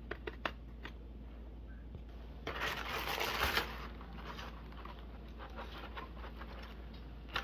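Kitchen handling noises: a few light clicks and taps, then about a second of rustling about two and a half seconds in.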